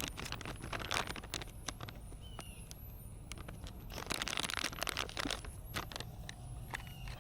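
Wood fire crackling and popping in a brick fire pit, with scattered sharp clicks and two short stretches of scraping and handling noise.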